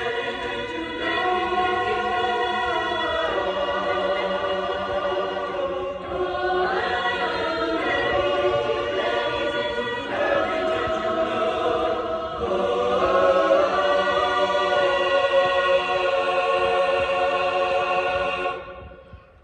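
Choir singing held chords; the singing stops about a second before the end.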